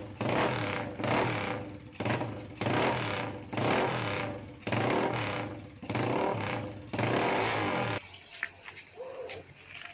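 Single-cylinder engine of a Honda NX250 motorcycle being revved in quick blips, about one a second, then cut off sharply about eight seconds in.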